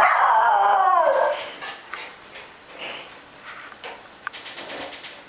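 Miniature schnauzer howling: one loud call that slides down in pitch over about a second, followed by quieter short whimpers. This is how she asks for help getting her toy. A quick run of sharp clicks comes near the end.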